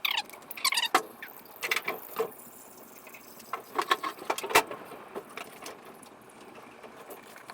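Scattered light clicks and knocks, with a few brief squeaks in the first second.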